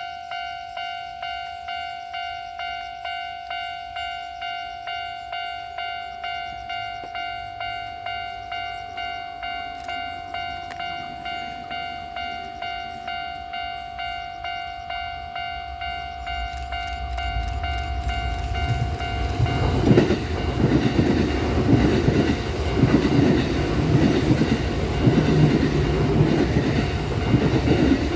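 Japanese level-crossing warning bell ringing in a steady electronic beat, about one and a half strikes a second. From about halfway a Kintetsu electric train (9020, 1252, 1233 and 8810 series sets coupled) grows louder as it approaches. It then passes over the crossing with a heavy rumble and wheel clatter for the last third.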